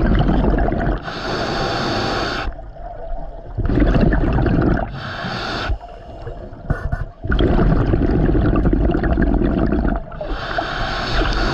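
Scuba regulator breathing heard close up: long bursts of exhaled bubbles gurgling past the mask alternate with shorter hissing inhalations through the regulator, over about two breath cycles.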